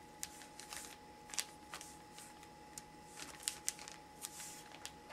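Light, irregular taps of a fingertip and fingernails typing on a smartphone's touchscreen keyboard, about fifteen quick ticks with a few louder ones.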